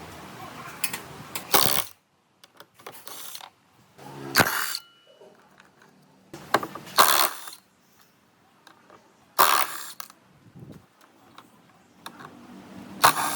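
Workshop work sounds: five short, loud, noisy bursts a few seconds apart, with faint clicks and near-quiet gaps between them.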